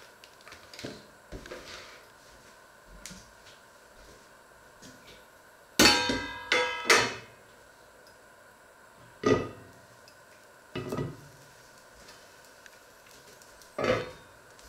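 Stainless steel pan lid and pans knocking together on the hob: a cluster of ringing metal clangs about six seconds in, the loudest, then three single knocks spread through the rest.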